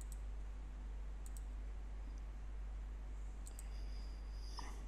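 A few faint computer mouse clicks, some in quick pairs, over a steady low hum.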